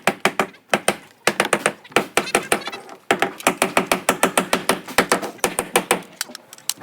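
Nail gun firing in rapid succession, sharp shots several a second with two brief pauses.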